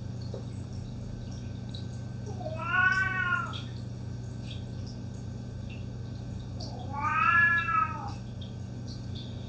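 Domestic cat meowing twice, about four seconds apart: two drawn-out calls, each about a second long, rising then falling in pitch.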